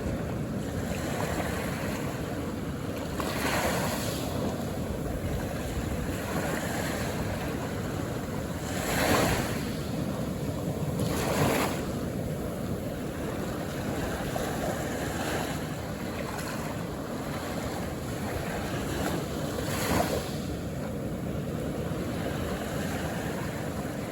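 Calm ocean surf washing onto the shore: a steady rush of water, with a few louder waves breaking, the strongest about nine and eleven seconds in and again near twenty.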